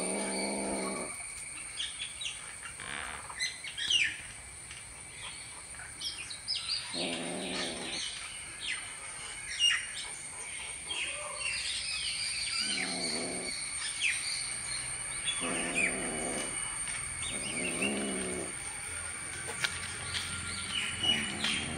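A kitten's low growls, about six drawn-out calls of a second or so each, the warning growl of a kitten holding its caught skink. Birds chirp throughout, over a steady high insect whine.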